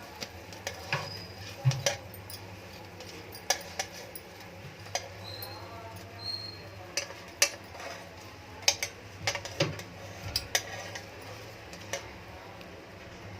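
A kitchen utensil tapping and clinking on a metal tawa as the pakoras are turned over one by one: irregular light clicks, a few with a short metallic ring, over a low steady hum.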